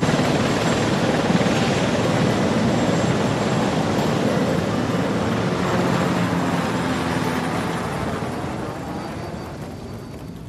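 Helicopter flying, its rotor and engine noise loud and then fading over the last few seconds.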